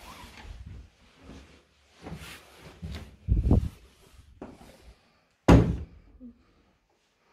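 An interior wooden door being handled: a series of irregular thumps and knocks. The sharpest and loudest knock comes about five and a half seconds in.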